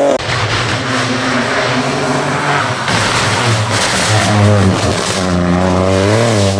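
Peugeot 208 Rally4 rally car's turbocharged three-cylinder engine revving hard as it passes close, its pitch climbing and dropping with gear changes. Loose gravel and dirt hiss from the tyres as it slides through the bend.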